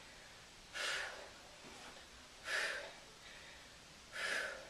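A woman's forceful breaths out through the mouth, three of them about a second and a half apart, one per repetition of an exercise, with faint breaths in between.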